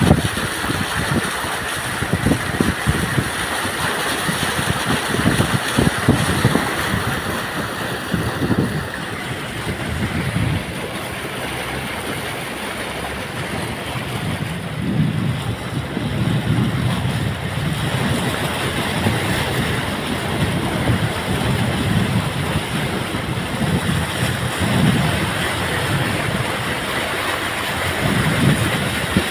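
A car wading through floodwater: continuous rushing and splashing of water pushed aside by its wheels and body, with wind buffeting the microphone in irregular gusts.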